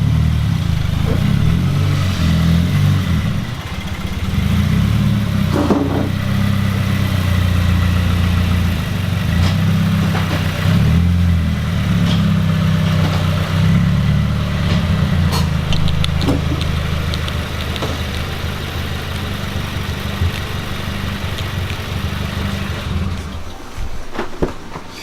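Car engine running close by, with a strong low rumble, then shut off about a second and a half before the end.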